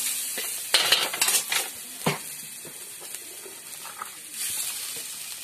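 Chicken, onion and tomato sizzling in a hot blackened wok over a gas burner while a spatula stirs and scrapes it. A quick run of sharp clanks of the spatula against the wok comes about a second in, and another shortly after.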